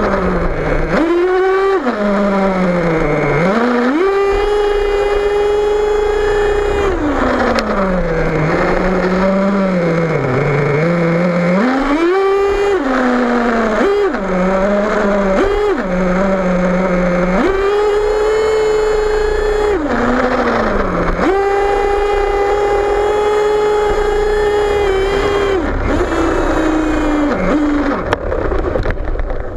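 Nitro engine of an HPI Savage XL radio-controlled monster truck, heard close up from on board, revving up and down under throttle. Its pitch climbs to a steady high whine held for several seconds at a time, drops back when the throttle is let off, and blips up briefly in between.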